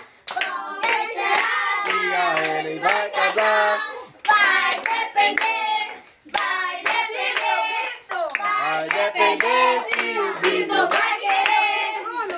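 A group of people singing together and clapping along in a steady rhythm.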